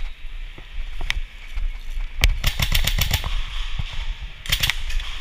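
Airsoft rifle firing: a single shot about a second in, then a rapid burst of about nine shots lasting about a second, and a shorter burst near the end.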